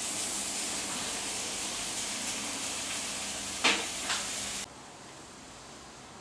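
Steady hissing kitchen noise with two sharp knocks, as of things being handled at the counter, about three and a half seconds in. The hiss then cuts off suddenly, leaving a quiet room tone.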